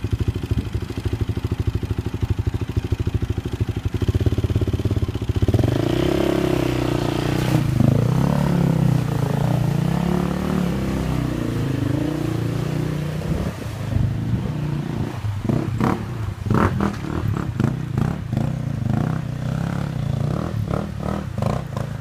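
KTM enduro dirt bike engine ticking over at low revs, then revved up with the pitch rising and falling as the bike is ridden through a rocky river. In the later part, sharp knocks and clatter come in over the engine.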